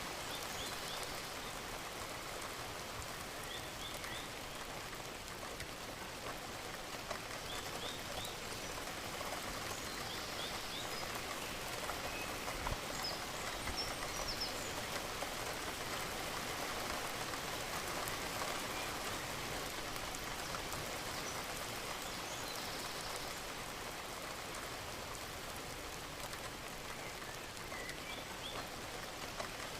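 Steady rain falling and pattering on surfaces, an even hiss of drops, with a few faint, short high chirps now and then.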